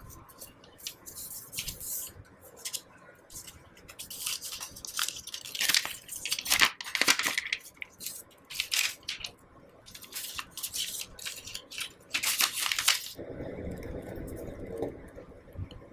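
Protective wrap rustling and crinkling in irregular bursts as it is peeled off a new iPad by hand. A duller, lower handling sound follows near the end.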